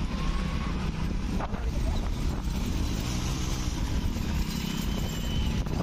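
Motorcycle engines running steadily at road speed, a continuous low rumble.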